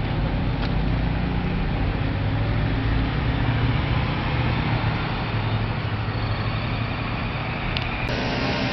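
Car engine and road noise: a steady low hum from a vehicle driving slowly, heard from inside it. The sound changes abruptly near the end.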